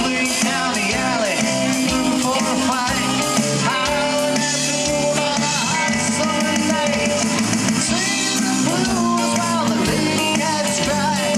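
Live rock band playing a rockabilly number, with two electric guitars, electric bass and a drum kit.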